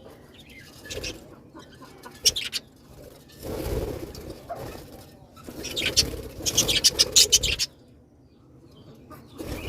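Birds in a colony calling, with two louder bursts of rapid sharp clattering: a short one about two seconds in and a longer one from about six to seven and a half seconds in.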